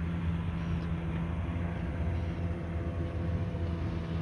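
Steady low engine drone with a constant pitch, unchanging throughout.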